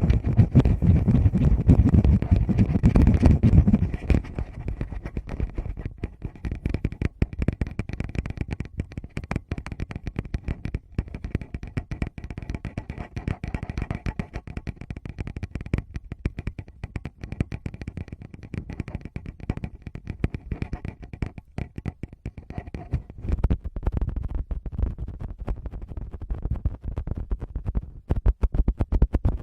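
Fingers tapping and rubbing on a Tascam recorder's microphones: a dense, quick run of close taps and scratches. It has a heavier low rumble for the first four seconds, then goes on as lighter, rapid taps.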